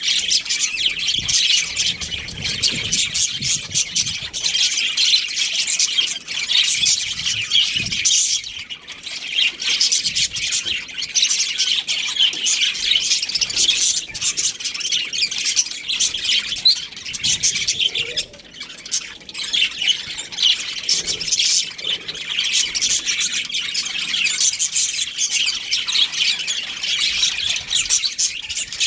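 Budgerigars chirping and chattering continuously in quick, overlapping high chirps, with brief lulls twice.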